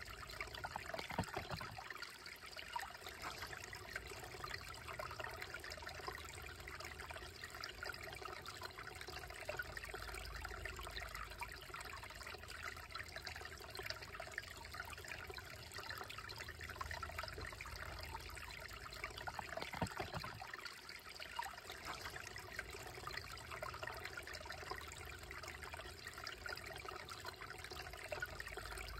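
Shallow, slow-moving creek trickling and babbling over rocks in a steady, even flow.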